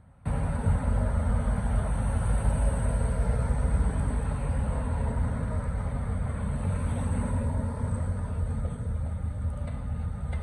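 Street traffic: a steady rumble of cars and pickups driving past, starting abruptly a moment in.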